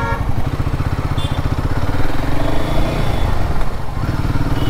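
Royal Enfield Himalayan 450's single-cylinder engine running steadily as the motorcycle is ridden, its rapid even pulsing continuous throughout.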